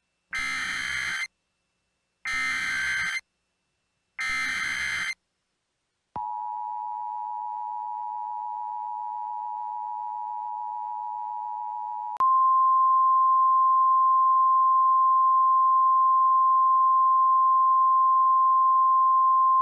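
Emergency Alert System warning tones. First come three one-second bursts of SAME digital header data, a second apart. Then the two-tone EAS attention signal sounds for about six seconds. It switches abruptly to a louder single steady tone, the 1050 Hz weather-radio warning alarm tone, which holds without a break.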